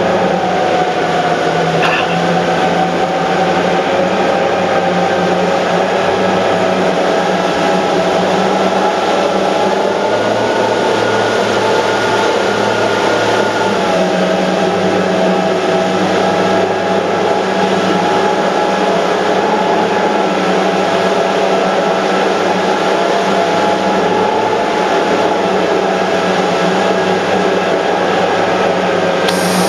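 The engines of a 900 hp rigid inflatable boat running at speed: a steady drone whose pitch wavers slightly, over the rush of the churning wake and wind.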